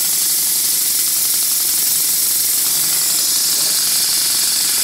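Small Stuart Progress single-cylinder model steam engine running fast on an air line, a rapid, steady mechanical beat with hissing exhaust, belt-driving a small dynamo.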